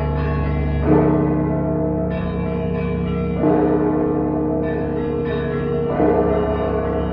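Russian Orthodox church bells ringing, a new stroke about every two and a half seconds, three in all, each one ringing on into the next over a steady low hum from the larger bells.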